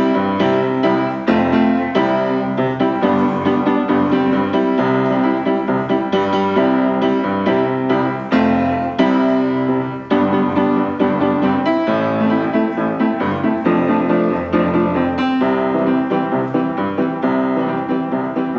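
Background piano music: a continuous flow of notes with no pauses.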